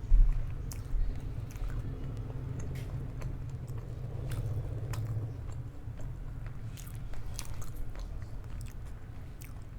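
A person chewing food, with scattered crunches and soft mouth clicks. A loud knock comes right at the start.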